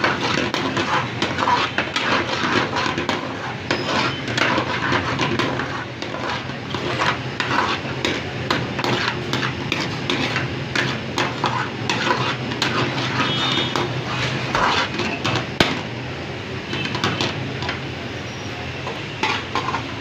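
Metal spatula repeatedly scraping and clanking against a cooking pan as a cook stirs dal chana over the heat, with a steady low hum underneath.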